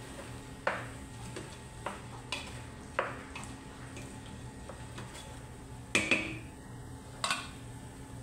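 Wooden spoon stirring orange lentils and diced potatoes in a stainless steel pot, knocking sharply against the pot's sides several times, with two close loud knocks about six seconds in and another just after seven seconds.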